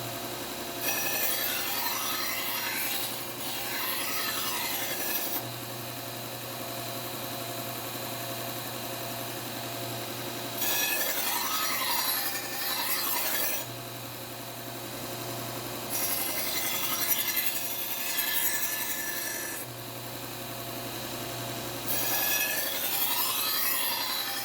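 Bucktool slow-speed bench belt sander running with a steady hum, while a Shun kitchen knife blade is drawn across its 3M Trizact abrasive belt in four grinding passes of a few seconds each, sharpening the edge. The motor hum comes through more plainly between passes.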